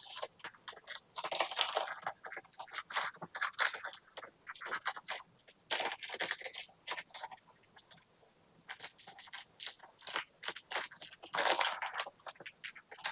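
Baking paper crinkling and crackling in many short, irregular strokes as it is gently peeled away from the sides of a freshly baked castella, with a brief lull about eight seconds in.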